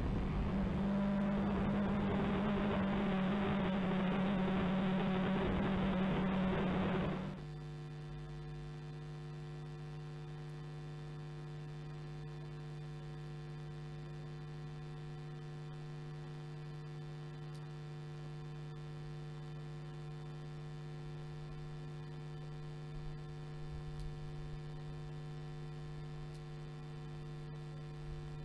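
A pack of BMW racing cars running at high revs as they pass on the track. About seven seconds in the engine sound cuts off abruptly, leaving a steady electrical hum with a buzz for the rest.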